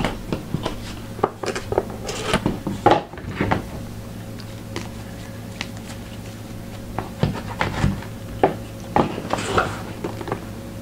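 Scattered clicks, taps and rubbing of objects being handled on a tabletop, in two clusters about a second in and again about seven seconds in, over a low steady hum.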